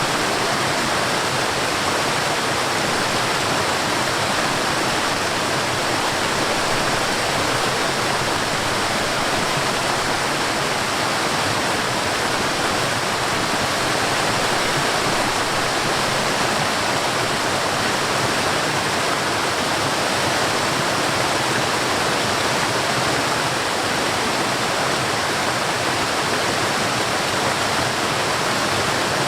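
Forest waterfall: water falling and rushing in a steady, unchanging hiss.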